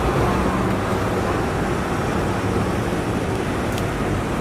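Steady street traffic noise: a low rumble of vehicle engines running.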